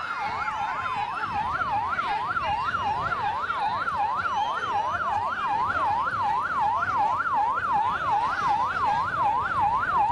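Electronic siren of a motorcade escort vehicle in yelp mode, its pitch sweeping rapidly up and down about three times a second, over a low rumble.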